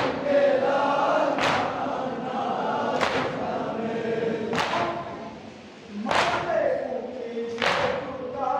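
Group of men chanting a nauha (Shia mourning lament) in unison, with a collective chest-beat (matam) striking in time about every second and a half. The chanting thins out briefly just before the fifth beat.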